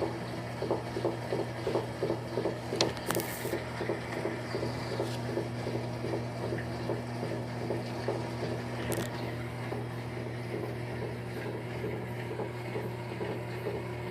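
LT13B top-loading washing machine in its wash cycle: a steady motor hum with the agitator churning water and clothes at about three strokes a second. After about four seconds the strokes blur into steadier sloshing, and a couple of short clicks stand out.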